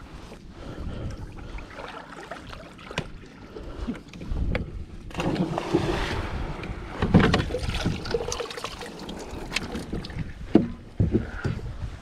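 A Hobie kayak pedal drive handled in its well in a plastic kayak hull and lifted out onto the deck: scattered clunks and knocks, the loudest about seven and ten and a half seconds in, over a steady low noise of wind and water.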